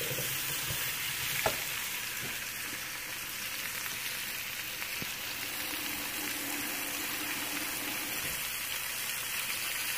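Butternut squash cubes, Malabar spinach stalks and shrimp sizzling as they fry in oil in an aluminium wok, a steady hiss. One clink of the metal spatula against the pan about a second and a half in.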